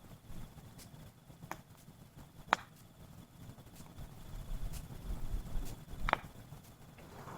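Wood fire crackling: a few sharp, separate pops from the burning wood, the loudest about six seconds in, over a low rumble.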